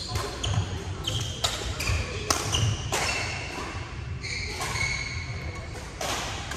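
Badminton rackets hitting shuttlecocks: sharp hits at irregular intervals, often less than a second apart, some followed by short high squeaks from shoes on the wooden court floor. Everything echoes in a large sports hall.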